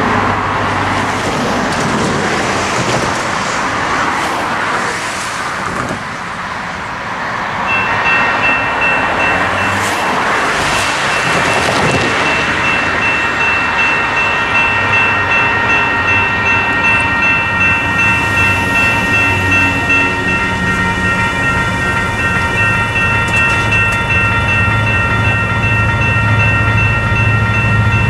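Railroad crossing warning bell starting about eight seconds in and ringing steadily in rapid repeated dings as the crossing activates; before it, road traffic passes. Toward the end a low rumble builds from the approaching Union Pacific diesel freight train.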